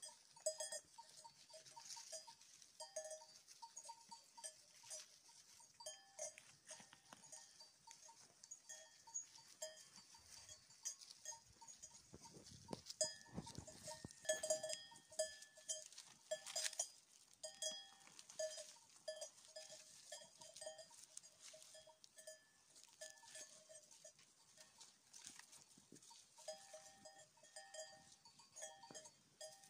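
Bells on a grazing flock of sheep clinking irregularly, many short ringing strikes at a few fixed pitches, with scattered soft clicks from the animals moving and feeding.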